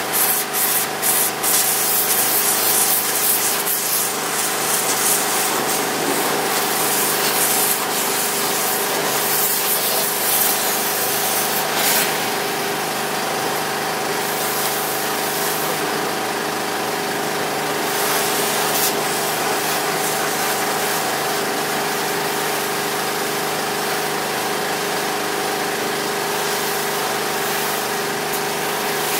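A pressure washer's small engine running steadily, with the hiss of spray, muffled and overlaid with rubbing noise from the phone against cloth, heaviest in the first two seconds.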